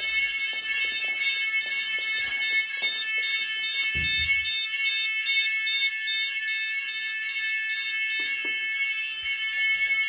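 Finsécur type 4 fire alarm sounding its general evacuation signal: a steady, shrill electronic tone with a faster pulsing layer above it.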